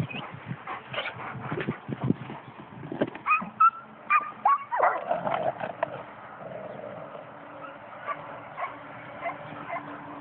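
Dogs whining and yipping during play, short high calls and quick rising whines, clustered about three to five seconds in.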